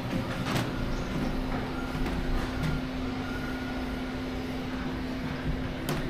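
A steady low mechanical rumble with a constant hum, with a few faint clicks over it.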